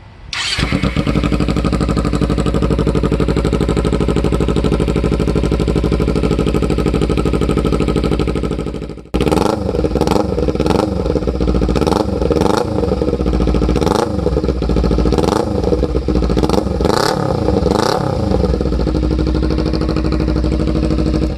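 Kawasaki Ninja 300's parallel-twin engine running through a near straight-pipe exhaust, loud with a rumble to it: a steady idle, then from about nine seconds in a string of quick throttle revs, each rising and falling back to idle.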